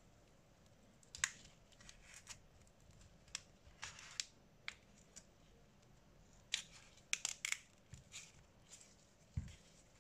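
Irregular small clicks, taps and short scrapes of hand tools working on a smartphone's body during a screen replacement, with a cluster of sharp clicks a little past the middle and a dull knock near the end.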